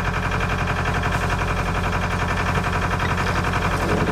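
Sailboat's auxiliary engine running steadily under way, a constant hum with a fast, even chugging pulse.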